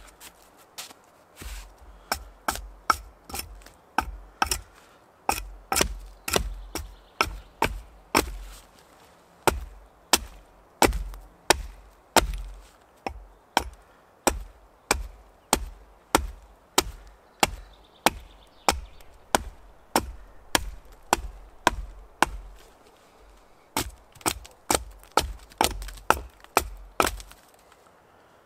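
Hatchet blows chopping into a wooden pole braced against a log, hewing it down: sharp wooden chops at about two a second, with a couple of brief pauses.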